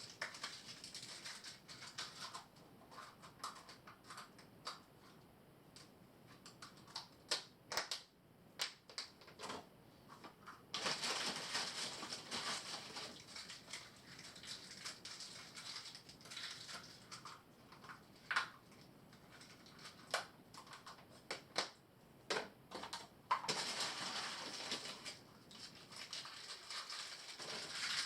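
Irregular clicks and crackles with stretches of rustling.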